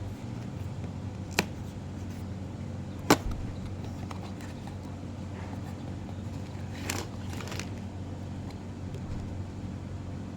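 Blind-box toy packaging being handled: two sharp clicks, the second and louder about three seconds in, then a brief rustle a few seconds later, over a steady low hum.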